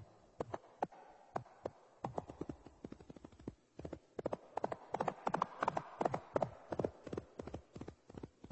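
Ferrets at play: a quick, irregular run of small clicks and taps, busiest in the middle and thinning out near the end.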